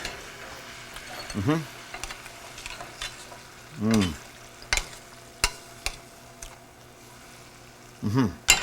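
Chicken tenders sizzling in a pan of melted butter, hot sauce and honey, with a few sharp clicks between the middle and two-thirds through and three brief rising-and-falling hum-like sounds.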